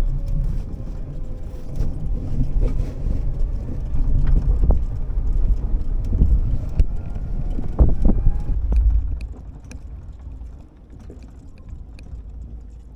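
Golf cart driving over snow, its motor running with a rising whine as it picks up speed; it quiets about nine seconds in, leaving scattered small clicks and crunches.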